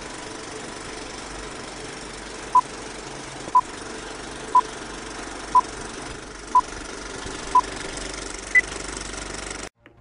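Film countdown leader sound effect: a film projector running steadily, with short beeps once a second, six at one pitch and then a single higher beep. The sound cuts off suddenly near the end.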